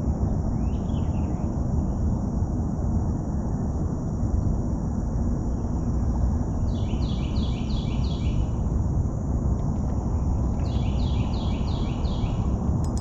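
Steady low outdoor noise with a songbird singing two phrases of five or six quick, repeated downward-slurred notes, one about halfway through and one near the end, and a short call about a second in; a steady high hiss runs underneath.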